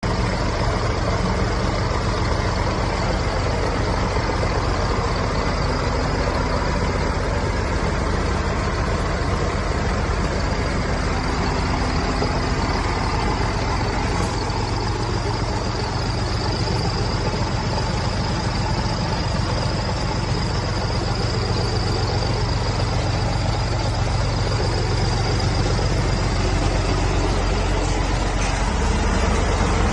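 2019 Scania S500 truck's 13-litre straight-six diesel engine running steadily at an even low pitch.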